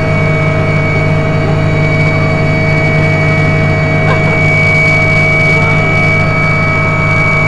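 Mi-2 helicopter's twin turboshaft engines and rotor running steadily in flight, heard inside the passenger cabin: a loud, constant drone with several steady whining tones.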